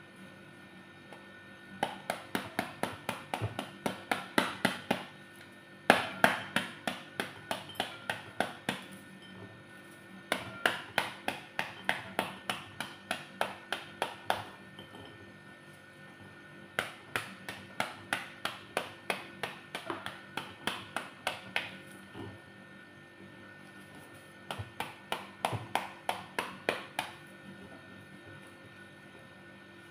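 Metal tool knocking repeatedly on the rind of a halved pomegranate to shake the seeds out, in quick runs of about four or five taps a second. There are five runs of several seconds each, with short pauses between.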